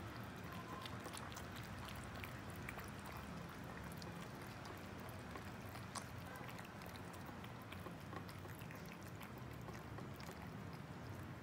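Two cats eating wet cat food: soft, wet chewing and smacking, with many small irregular clicks.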